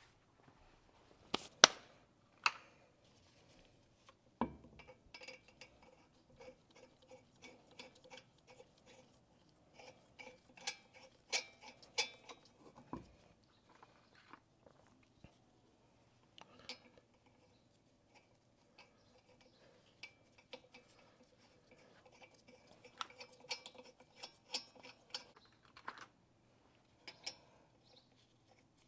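Irregular light clicks, taps and clinks of small hard objects being handled, the sharpest pair about a second and a half in, with denser runs of ticking in the middle and near the end.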